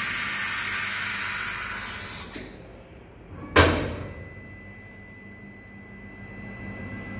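Automatic tool change on an EMCO Concept Mill 55 CNC mill. There is a loud hiss for about two seconds, then a single sharp clunk about three and a half seconds in as the new tool is taken into the spindle.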